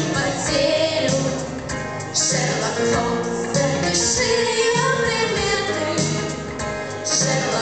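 Two girls singing a pop-style duet in Russian into microphones over an instrumental backing track with a steady beat.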